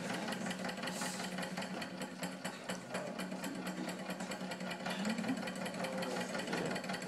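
Small student-built Stirling engine running steadily and driving its fan, the mechanism making a rapid, even clatter over a steady low hum.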